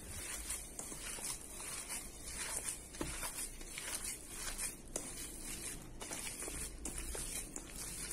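A hand squishing and kneading raw ground-meat meatball mixture in a stainless steel bowl: wet squelching strokes about twice a second.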